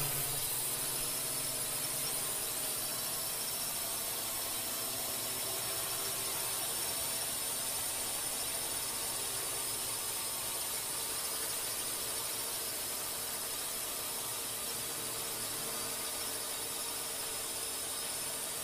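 A steady high-pitched mechanical whine over an even hiss, unchanging in level and pitch.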